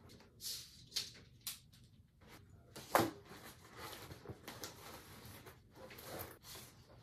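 Rustling and light knocking as a person rummages through a bag on a chair, with one sharper knock about three seconds in.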